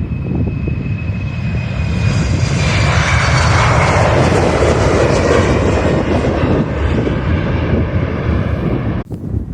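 Airliner passing by: a steady engine rumble and whine that swells to a peak midway and then eases off, its high tones sliding slowly down in pitch as it goes past. The sound breaks off abruptly for a moment near the end.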